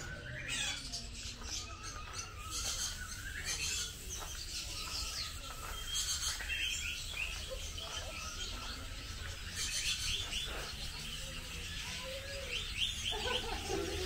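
Many small caged aviary birds chirping in short, quick, overlapping calls, with voices near the end.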